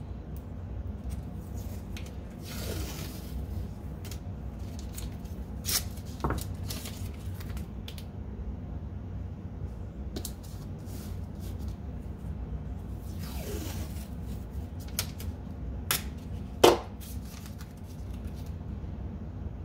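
Blue painter's tape pulled off its roll twice, each a ripping pull of about a second, with a few sharp snaps as strips are torn off and pressed down; the loudest snap comes near the end. A steady low hum runs underneath.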